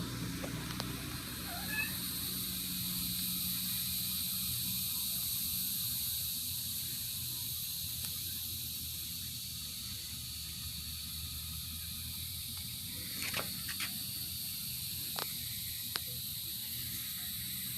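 Steady high-pitched outdoor hiss over a low hum, with a few faint clicks near the end.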